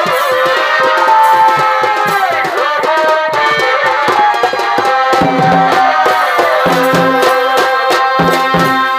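Purulia Chhau dance music: a shehnai plays a held, bending melody over steady drumming on dhol and dhamsa, with a run of deeper drum strokes from about halfway through.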